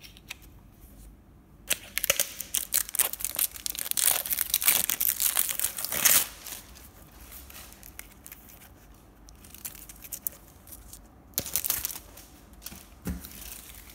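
Packaging being torn and crinkled off a tube of feather shuttlecocks: a dense run of scratchy tearing lasting about four seconds, then a shorter burst near the end.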